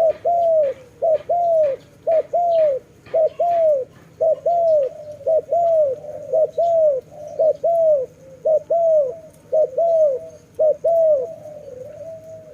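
Dove cooing: a quick run of short, arched coos, mostly in pairs about once a second, turning softer and more drawn-out near the end.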